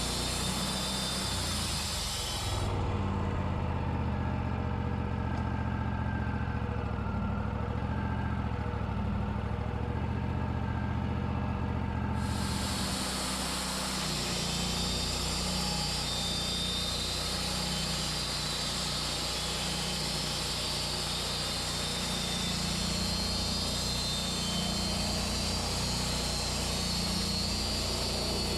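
Wood-Mizer LT40 portable sawmill running steadily, its engine humming low with a hiss above it; the hiss drops away about three seconds in and comes back about twelve seconds in.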